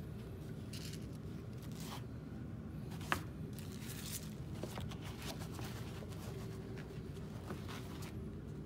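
Rustling and scraping of handling noise, with one sharp click about three seconds in, over a steady low hum.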